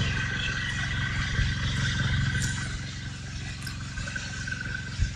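An engine running steadily with an even low pulse and a thin high whine above it, fading gradually. A short knock near the end.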